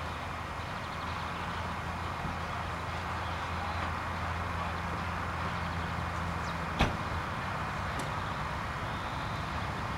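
A car engine idling steadily, with one sharp click about seven seconds in.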